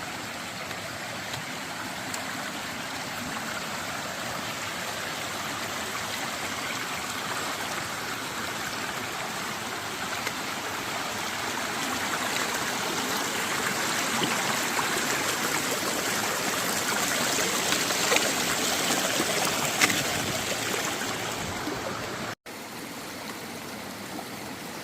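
Stream water running with a steady rush that grows louder toward about twenty seconds in, with a couple of sharp clicks near its loudest. It breaks off suddenly a couple of seconds later and continues more quietly.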